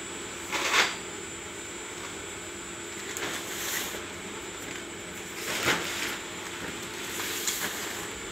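Inclined cleated belt conveyor running with a steady hum and a thin high whine. About four short bursts of plastic rustling and knocking come as plastic-wrapped packs are handled and set onto its roller infeed.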